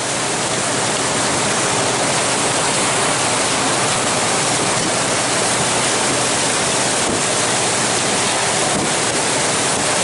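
Steady rushing noise of wind and water aboard a moving glacier cruise boat, even and unbroken.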